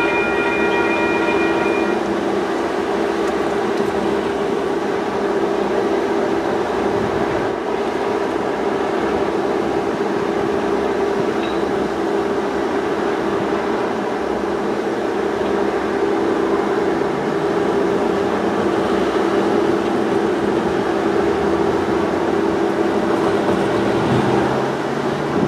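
Freight cars rolling along curved track, a steady rumble of wheels on rail with a steady low whine running through it. A higher pitched tone stops about two seconds in.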